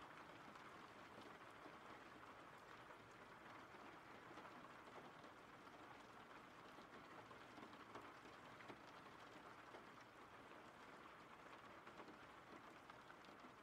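Faint steady rain: an even hiss with scattered small drop ticks.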